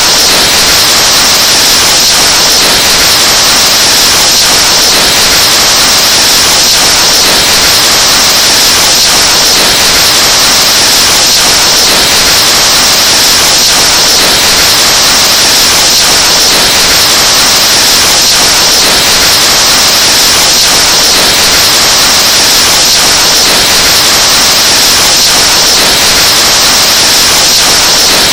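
Breath blown hard straight into a microphone, overdriven into a loud, distorted rush of static-like noise that holds steady at full volume.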